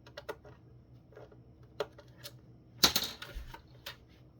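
Light clicks and taps of a plastic phone housing being handled, with one louder clatter about three seconds in.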